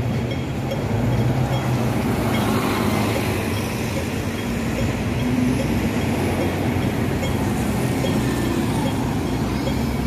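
Busy city road traffic: buses, a taxi and a truck driving past with a steady engine rumble.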